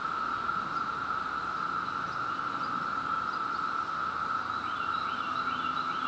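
Steady, unbroken drone of a chorus of Brood II periodical cicadas: males calling to attract mates.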